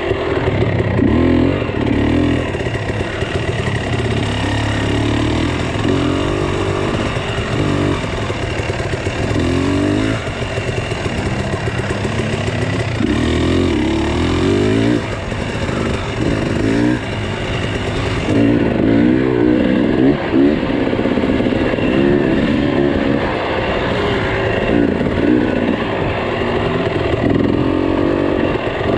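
Small vehicle engine running and revving up and down in repeated surges.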